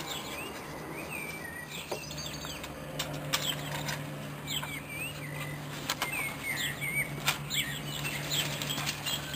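Small birds chirping, with many short high calls scattered throughout, over a steady low hum and a few faint clicks.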